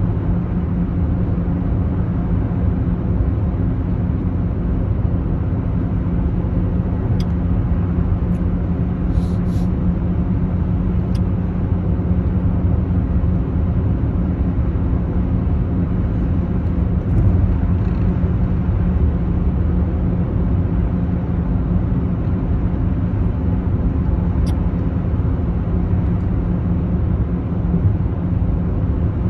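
Steady low rumble of a car's engine and tyres on the road, heard from inside the cabin while driving through a road tunnel, with a steady low hum. A few faint clicks come about a third of the way in and once more near the end.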